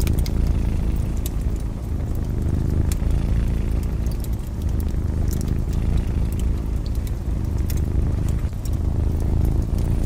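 A cat purring in a steady, deep, fluttering rumble, with the scattered pops and crackles of a wood fire over it.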